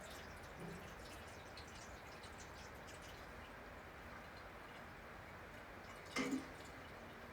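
Water dripping from melting snow, light scattered drips over a faint steady hiss, with one louder short double knock about six seconds in.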